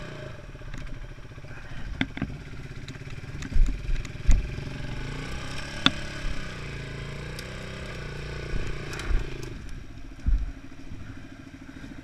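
Small dirt bike engine running at low speed over a rough forest trail, with rattles, clicks and several heavy thumps as the bike jolts over bumps, the loudest about a third of the way in and again near the end. After about three-quarters of the way through, the engine settles to a steady idle as the bike stops.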